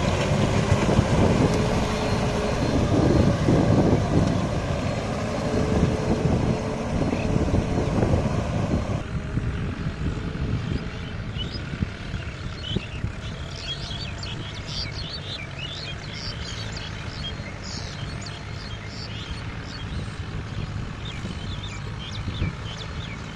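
Mahindra 595 DI Turbo tractor's diesel engine running under load while it drags a rotary tiller through wet paddy-field mud. It is loud and close for the first nine seconds, then suddenly farther off and quieter, with faint high chirping over it.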